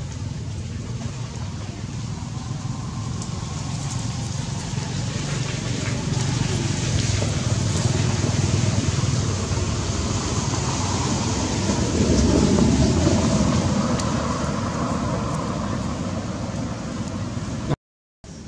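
A motor vehicle's engine and road noise drawing near and passing: a steady rumble that grows to its loudest about two-thirds of the way through, then fades. The sound cuts out abruptly near the end.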